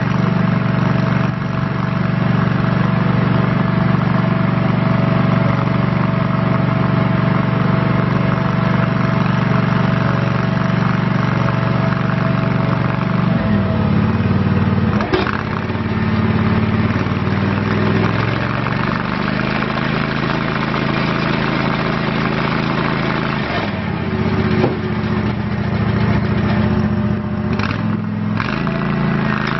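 Kawasaki engine of a Toro STX-26 tracked stump grinder running steadily at high speed. Its note changes in steps about halfway through and twice more near the end, with a brief sharp knock soon after the first change.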